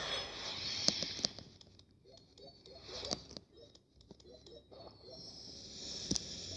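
Crinkling and rustling of a Pokémon booster pack's foil wrapper and the cards inside as they are handled, with a couple of sharp clicks about a second in. A second stretch of rustling comes near the end.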